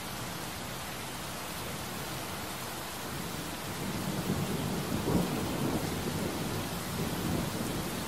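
Heavy rain pouring steadily. About halfway through, a low rumble of thunder swells in, peaks and rolls on.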